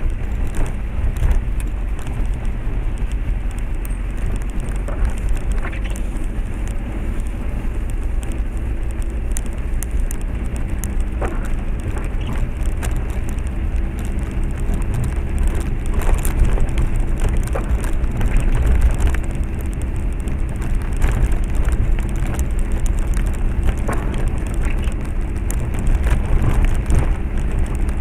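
Car driving seen from inside the cabin: steady low rumble of the engine and tyres on a rough, wet, potholed road, with scattered knocks and rattles as the wheels hit the bumps.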